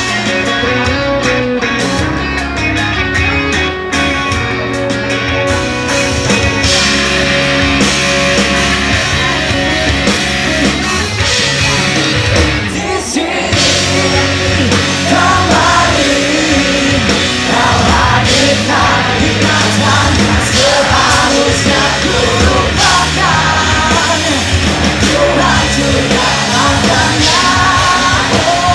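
Live rock band playing loud: electric guitars, bass and drums, with a brief drop about halfway. A voice singing over the band comes in after the drop.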